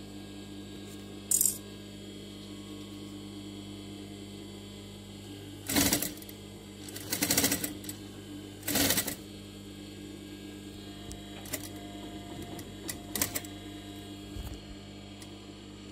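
Sewing machine stitching in three short runs about six to nine seconds in, over the steady hum of its running motor, with a few light clicks afterwards.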